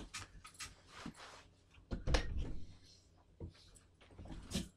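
Scattered light knocks and clicks, with a louder dull thump about two seconds in and a sharp click near the end.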